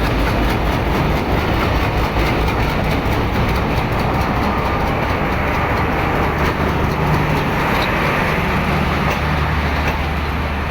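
Diesel-hauled passenger train rolling into a station platform: dense clicking of wheels over rail joints with rumbling noise and a steady low drone that grows stronger about halfway through.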